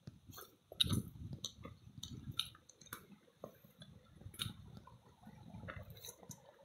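Footsteps crunching on loose gravel, stones and dry leaves, an uneven run of scuffs and clicks.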